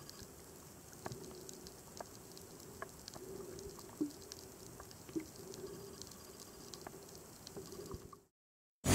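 Faint underwater ambience through a camera's waterproof housing: scattered small clicks and pops over a low steady hum and hiss. It cuts to silence shortly before the end.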